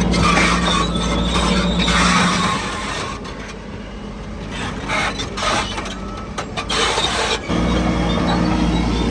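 Heavy earthmoving machinery: a diesel engine running steadily, then easing off about two seconds in while metal clanks and squeaks come through, and pulling strongly again near the end.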